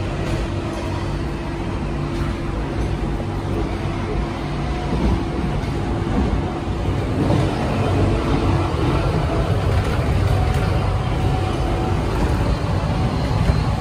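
Sydney C set chopper-controlled electric train heard from inside a moving carriage: a steady running rumble with a steady hum, growing a little louder partway through.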